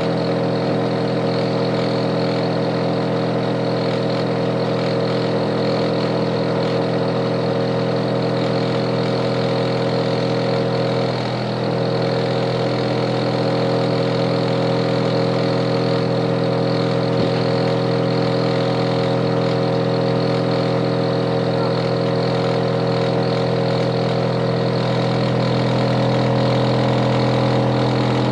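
Hitachi air conditioner outdoor unit running with a steady, loud hum of several held tones. The hum dips briefly about eleven seconds in.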